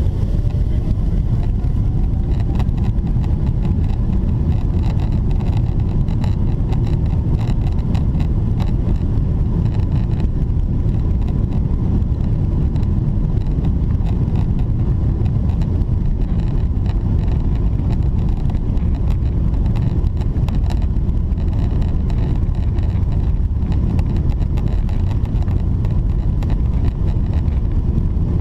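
Boeing 777-300ER on its takeoff roll, heard from the cabin: the GE90-115B engines rise in a whine over the first few seconds as they spool up. A loud, steady rumble of engine and runway noise follows as the jet accelerates, with a faint high-pitched fan tone that the uploader takes as a sign of a full-power takeoff.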